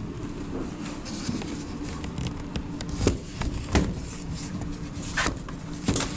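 Camera handling noise: rubbing against the microphone with several sharp knocks, about three seconds in and again near the end, over a low steady hum.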